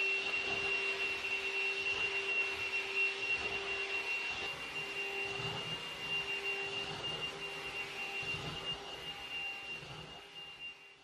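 Cordless handheld vacuum cleaner running while it is pushed over a bed duvet: a steady high motor whine over the hiss of suction. It fades out near the end.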